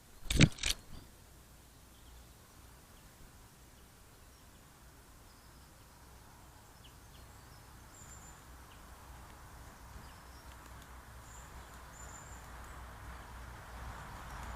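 Quiet outdoor background with a sharp knock and a few quick clicks just after the start. The background then grows slowly louder, with a few faint, brief, high-pitched bird calls about eight and eleven seconds in.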